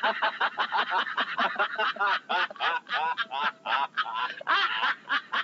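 Several people laughing hard in rapid, high cackling bursts. The sound is from an old radio broadcast taped off the air, with no high treble.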